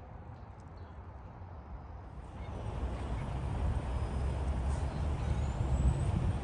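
Outdoor street background noise: a low, uneven rumble that grows louder a little before halfway through, with a faint thin rising tone near the middle.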